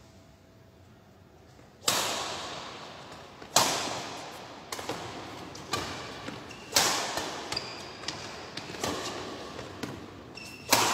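Badminton rally: rackets striking the shuttlecock back and forth, a sharp crack about once a second starting about two seconds in, each hit echoing through the hall.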